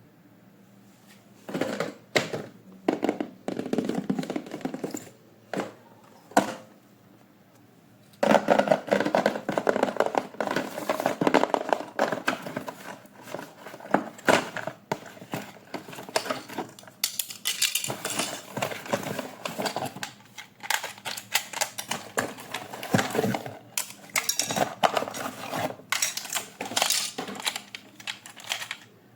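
Toy packaging being handled and opened: clicks, knocks and rustling of cardboard and plastic, a few separate handlings at first, then a dense, busy run from about eight seconds in.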